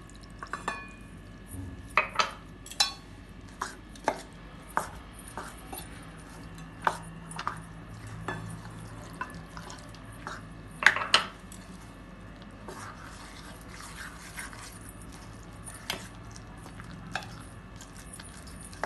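Steel spoon stirring a thick flour-and-milk batter in a stainless steel bowl, with irregular clinks and knocks of spoon against bowl; the loudest pair of knocks comes a little past the middle.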